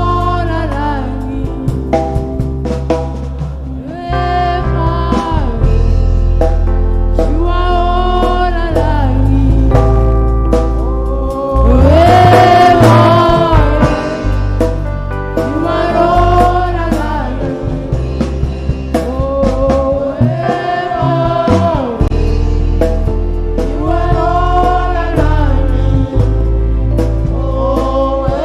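Gospel song sung in church with instrumental backing: long held sung notes in short phrases over a steady bass line and a light drum beat, swelling loudest about twelve seconds in.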